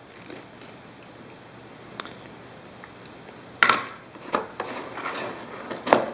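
Handling noise as a small plastic power adapter is set down on a wooden table with a sharp knock about three and a half seconds in. Hands then rummage in a cardboard box, with smaller knocks and a second sharp knock near the end.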